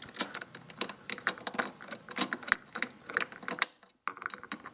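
Rapid, irregular clicking from a hand tool tightening the screws of a motorcycle fuel door hinge bracket. The clicking stops briefly about four seconds in.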